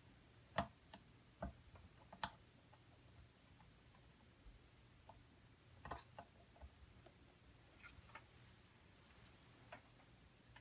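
Faint, irregular small clicks and taps of a screwdriver tip and soldering iron against a circuit board's component pins as they are pushed down into melting solder, over near silence.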